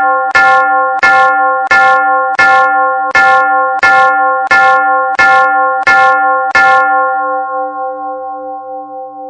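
A church bell struck by the Pulsator automatic bell ringer in even, rapid strokes, about three every two seconds, the same note each time. The strokes stop about seven seconds in and the bell rings on, fading with a slow wavering hum.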